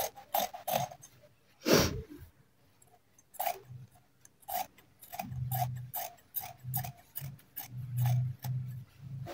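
Fabric scissors snipping through cotton cloth: a run of short, crisp blade clicks, about three a second, pausing briefly near the start. One louder, longer noise comes about two seconds in, and a low hum comes and goes in the second half.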